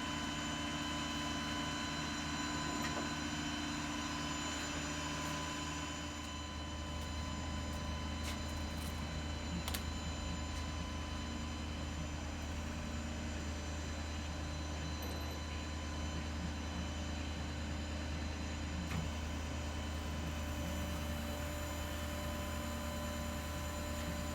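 Steady low hum with several steady tones, and a few faint clicks in the middle.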